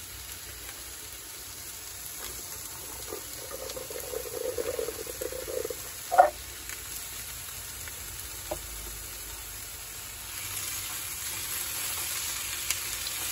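Vegetables sizzling in a Ridgemonkey pan as canned chickpeas are tipped in from the tin, with a single clunk about six seconds in. Near the end the sizzling grows louder as the mix is stirred.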